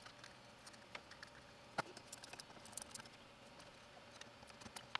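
Faint scattered clicks and taps of a plastic pickup bobbin being set on a wooden pickup winder's mounting plate and fastened with small screws and a screwdriver, the sharpest click about two seconds in.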